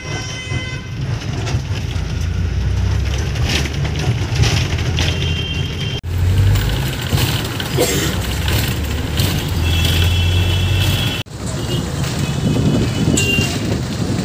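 A city bus's engine and road noise, heard from inside the moving bus as a steady low rumble. Vehicle horns honk several times: about a third of the way in, about two-thirds in, and again near the end.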